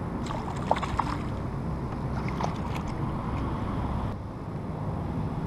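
Wind on the microphone and river water lapping against a plastic kayak, with a few light splashes and knocks in the first second or so as a small snapper (squire) is brought to the surface and scooped into a landing net.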